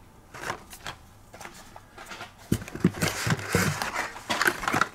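Carded Hot Wheels die-cast cars being handled and taken out of the case: light clicks and plastic-and-cardboard rustling, sparse at first and busier from about halfway.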